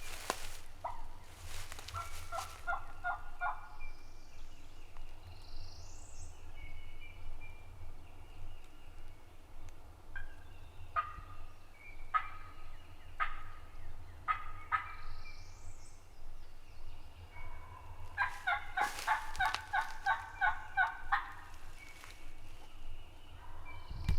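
Wild turkey gobbler gobbling in the distance, a rattling run a couple of seconds in and a longer one near the end, with a row of separate calls between them and faint songbird notes.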